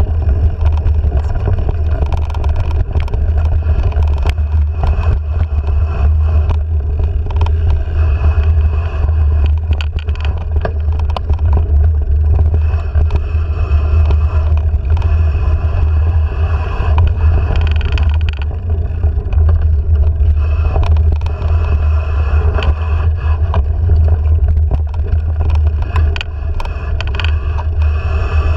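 Mountain bike rolling down a dirt singletrack, heard through a handlebar-mounted camera: a steady loud low rumble from the ride, with frequent clicks and rattles from the bike and trail.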